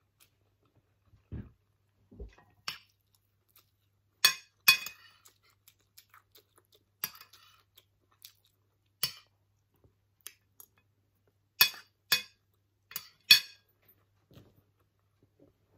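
Metal spoon clinking against a ceramic plate of fried rice: about ten sharp clinks at irregular intervals, with a few soft low thuds near the start.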